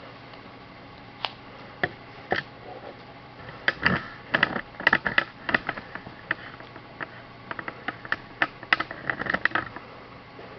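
Irregular light clicks and taps, bunched in the middle, over a faint steady low hum.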